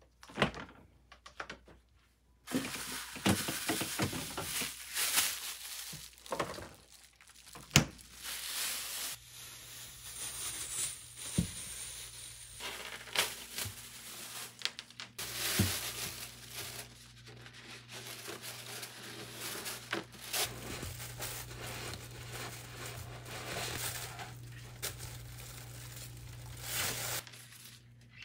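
Plastic bags crinkling and rustling as a fish is unwrapped by gloved hands, with sharp crackles throughout. A low steady hum joins about halfway through.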